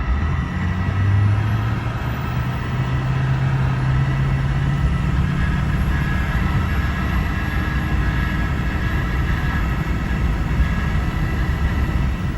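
Pickup truck engine pulling uphill on a dirt road, a steady engine drone over road noise. The engine note steps up a little about two seconds in and then holds steady.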